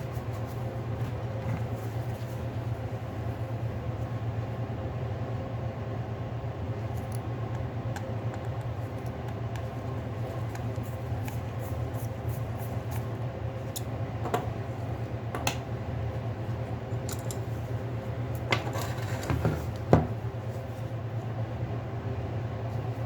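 A steady low hum of background machinery, likely a fan, with a few small sharp clicks and taps of handling, the loudest about 20 seconds in.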